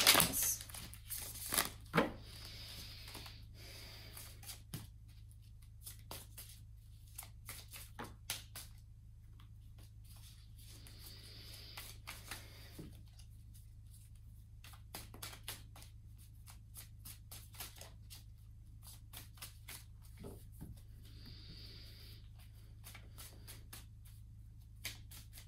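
A tarot deck being shuffled by hand, overhand: irregular soft clicks and slaps of the cards, with three longer hissing stretches of cards sliding together spaced several seconds apart.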